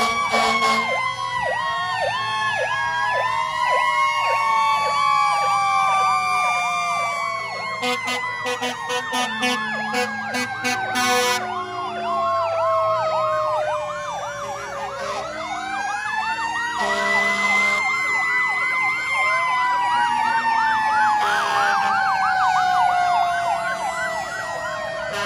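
Sirens of several parading fire trucks sounding at once: slow wails that rise and fall over several seconds, overlapped by fast repeating yelps. A lower steady blast cuts in several times.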